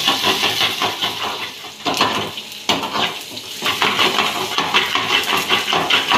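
Steel ladle scraping and clinking quickly against a steel frying pan as vegetables are stir-fried, with sizzling underneath.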